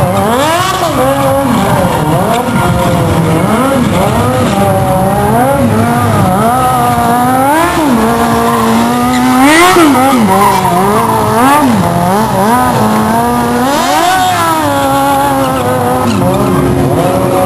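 An engine revved hard again and again: its pitch climbs and drops roughly once a second, and several times it is held steady at high revs, as against a rev limiter.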